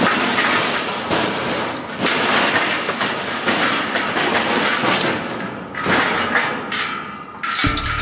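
A bucking bull thrashing in a steel chute, with dense, continuous rattling and banging of the metal rails and gate. Music comes in near the end.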